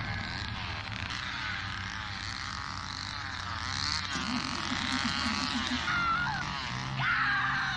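Horror-film soundtrack: a woman shrieking and laughing hysterically over a running vehicle engine, with a chainsaw revving up and down.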